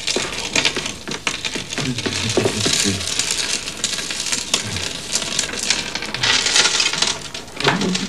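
Clear plastic sheeting crinkling and rustling as it is handled and pushed aside: a dense, irregular crackle of small clicks that swells and fades.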